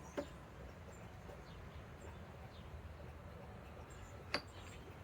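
Two short sharp clicks, about four seconds apart, over a faint low background; the impact wrench is not running.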